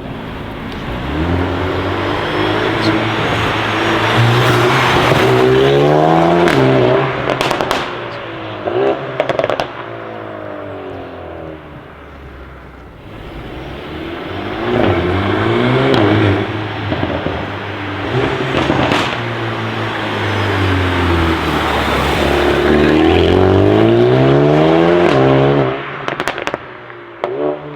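Mercedes-AMG A45 S's turbocharged 2.0-litre four-cylinder running through a Milltek OPF-delete straight-pipe exhaust, revving up hard in several loud pulls, its pitch climbing in steps. Sharp crackles and pops follow each pull as the throttle comes off.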